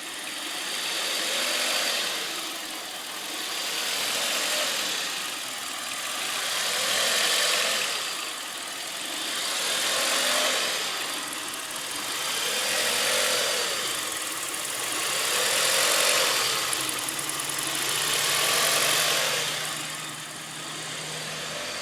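1998 Audi A4 B5 engine idling with a surging, hunting idle: the revs rise and fall about every three seconds, between about 1400 and 800 rpm, with the fault code P1545 (throttle valve control malfunction) logged.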